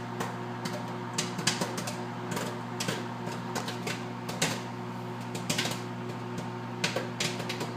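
Popcorn kernels popping inside a running microwave oven: sharp pops at irregular intervals, a few each second, over the oven's steady hum.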